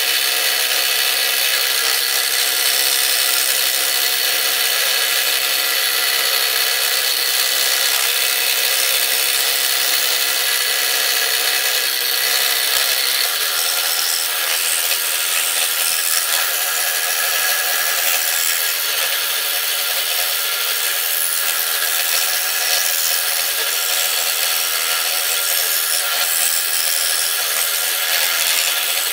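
Scroll saw running steadily, its reciprocating blade cutting through wood.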